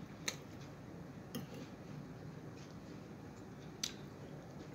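Quiet eating sounds: three short, sharp clicks over low room tone.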